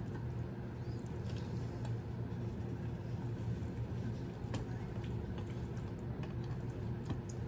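Raw Cornish hens being handled and arranged by hand in a glass baking dish: faint wet handling sounds and a few light clicks, over a steady low hum.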